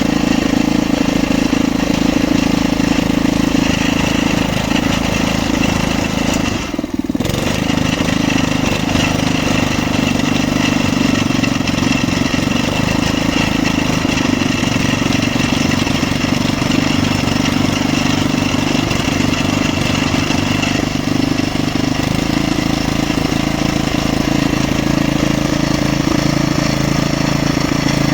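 Engine of a geological exploration drilling rig running steadily, with a brief drop in level about seven seconds in.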